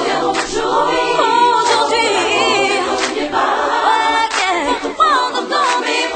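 Several voices singing together, choir-style, with no clear instrumental backing.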